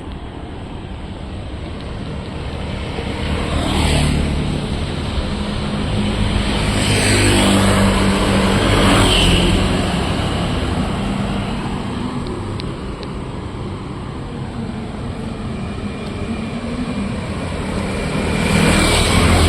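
Street traffic passing close by: several vehicles go by one after another, with the loudest passes about four seconds in, around seven to nine seconds, and just before the end, and engine hum between them.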